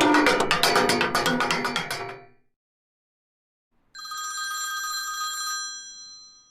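Rapid typewriter key clacks that stop about two seconds in. After a short silence comes one sustained ring of an electromechanical telephone bell, a steady jangling tone that fades out near the end.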